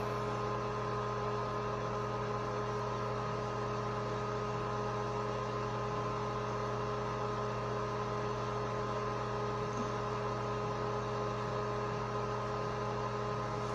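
Steady electrical hum: several constant tones over a light hiss, unchanging throughout.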